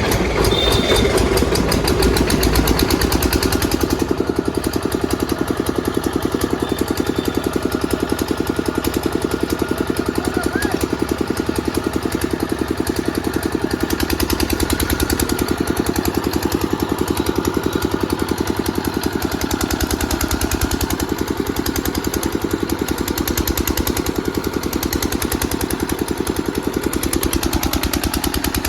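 A 5 kVA portable generator's engine running steadily with a fast, even firing beat.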